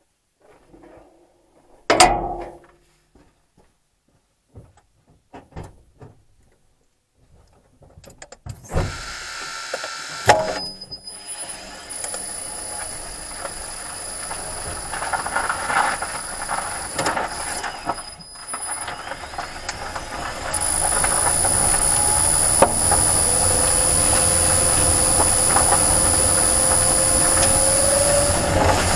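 A thump about two seconds in, then a Renault ZOE R240 electric car's drivetrain running as the car drives off, with a steady high-pitched whine, road noise and light ticking, growing louder about twenty seconds in.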